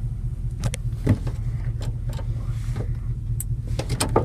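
Vehicle running along a rough dirt track, heard from inside the cab: a steady low drone of engine and road noise. Several sharp knocks and rattles come through it, the loudest about a second in and another near the end.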